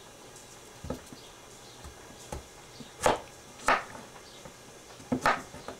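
A series of short, irregular knocks over a faint steady background, the loudest two about three and three and a half seconds in, with a quick double knock near the end.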